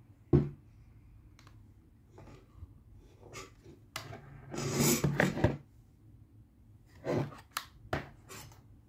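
Handling noise from a plastic video door-phone monitor being turned over in the hands: a sharp knock about a third of a second in, a longer scraping rustle around the middle, and a few short clicks near the end.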